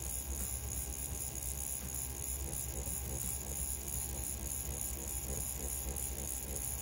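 CNC P6 rotary tattoo pen running at low voltage (5 volts, 3.6 mm stroke) during stippling: a steady motor hum.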